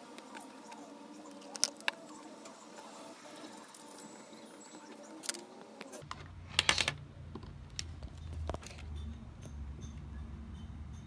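A few light, scattered clicks and taps, with a quick cluster of them about six and a half seconds in. A low steady hum comes in at about six seconds.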